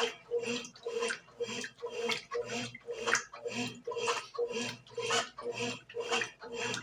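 Brastemp BWG11 11 kg washing machine agitating a load of bedding and towels: its motor hums and the water sloshes in a steady back-and-forth rhythm of about two strokes a second.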